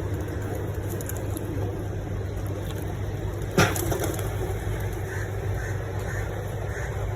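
A steady low hum, with a single sharp click about three and a half seconds in.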